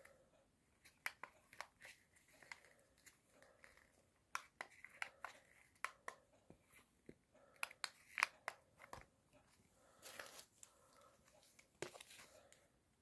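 Faint, irregular clicks of a small plastic remote control's buttons being pressed and handled, with a short rustle of paper about ten seconds in.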